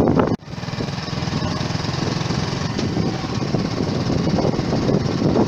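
Small motorcycle engine running under way with a fast, even putter that slowly grows louder. About a third of a second in, a louder rushing noise cuts off abruptly.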